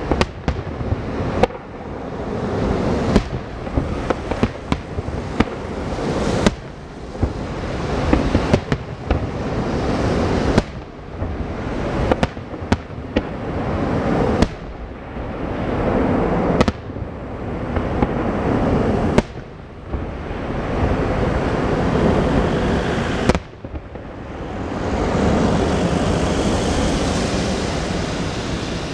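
Aerial firework shells bursting in quick succession: sharp bangs every second or so over a continuous rumbling crackle. In the last few seconds the bangs thin out under a steadier hissing noise.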